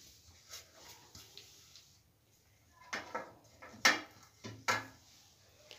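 Dishes and a container being handled on a kitchen counter: a few faint clicks, then several sharp clinks and knocks about three to five seconds in.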